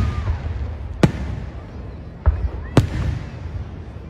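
Fireworks shells bursting overhead: three sharp bangs, one about a second in and two close together a little past the middle, over a steady low rumble.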